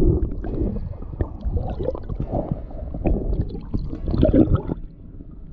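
Muffled gurgling and sloshing of water around a camera held underwater, with irregular knocks, as a snook is held by the jaw in the water and released; it turns quieter near the end.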